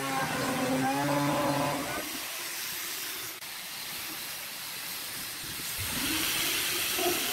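Handheld electric router running, its motor whine wavering in pitch as it cuts grooves in wood. After about two seconds it gives way to a quieter steady hiss. Near the end the router motor spins up with a rising whine and settles into a steady hum.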